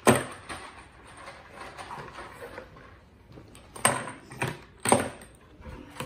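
Hard plastic toys, Mighty Beanz capsules and a plastic flip track, clicking and knocking against a cardboard box and a wooden tabletop. A sharp knock comes at the start, then faint clattering, then three more clicks about four to five seconds in.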